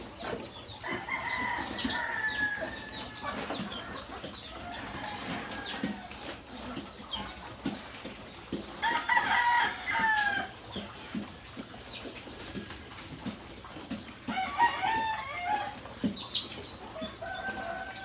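Roosters crowing several times, each crow a long call that drops in pitch at the end. Frequent short, low knocks sound between the crows.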